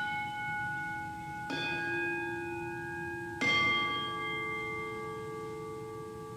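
Altar bells rung at the elevation of the consecrated host: a struck chime ringing on, struck again with a different note about a second and a half in and again about three and a half seconds in, the notes ringing on together.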